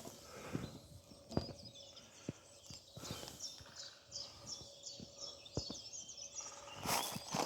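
Walking footsteps, faint irregular knocks, with small birds chirping in quick repeated high notes.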